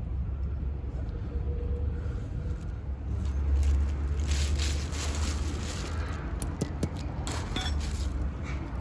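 Scraping and a few light metal clicks from hands working on a disc brake caliper and its support bracket, over a steady low rumble.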